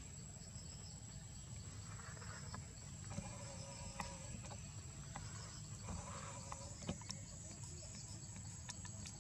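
A steady, high-pitched insect drone, with a low rumble underneath and a few sharp clicks.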